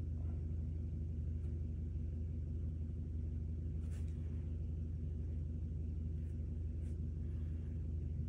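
Steady low hum of background room noise, with a few faint ticks and scratches, about four and seven seconds in, of a mechanical pencil drawing short straight lines on paper.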